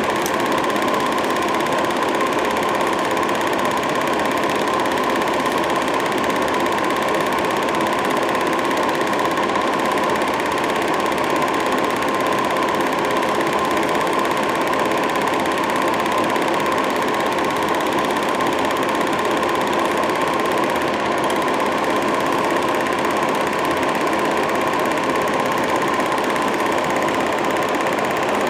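Film projector running with a steady mechanical clatter and hum, its motor and film transport going continuously while the silent home movie plays.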